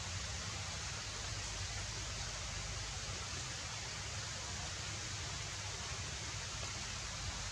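Steady, even outdoor background hiss with a low rumble underneath, with no calls or other distinct events.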